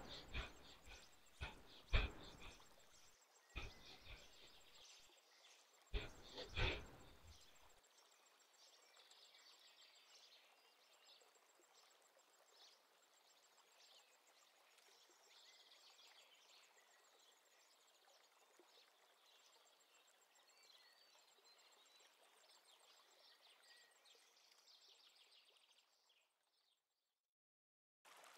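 Forceful in-and-out breaths through the nose of bhastrika (bellows breath) pranayama: a handful of sharp, irregularly spaced strokes, the last two close together about six seconds in. After that the breathing stops and only a faint hiss remains, cutting to silence near the end.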